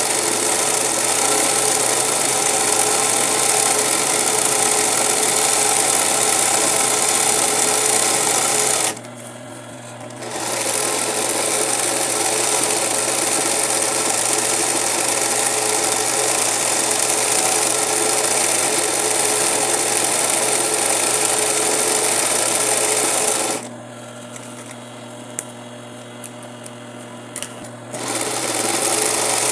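Singer 20U-type industrial zig-zag sewing machine stitching a satin-stitch edge around fabric appliqué, running steadily at speed. It stops briefly about 9 seconds in and again for about four seconds near the end, with a few small clicks and a low hum in that pause, then starts sewing again.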